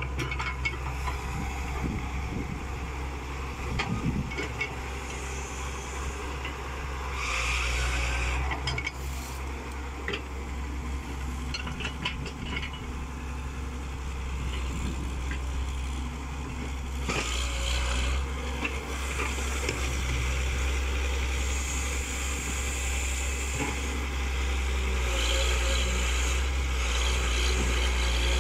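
Diesel engine of an IHI hydraulic excavator running steadily under work, with scattered knocks and scrapes of the bucket and soil in the first few seconds. The engine grows a little louder near the end.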